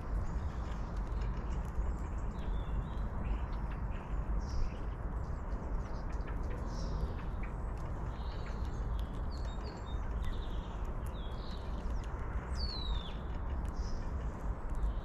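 Small birds chirping and calling on and off, with one clear downward-sliding call near the end, over a steady low outdoor rumble.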